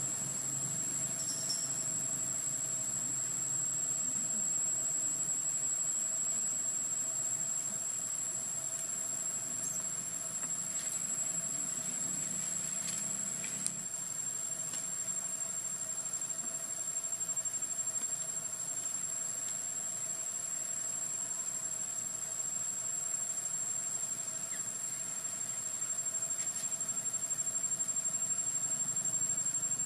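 Insects in the trees keeping up a steady, unbroken high-pitched whine, with a fainter lower steady tone beneath and a few faint brief chirps.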